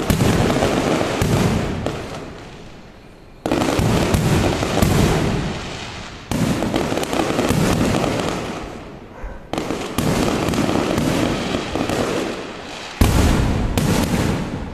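Fireworks going off in volleys: four sudden loud bursts, each followed by a few seconds of dense crackling that slowly dies away before the next.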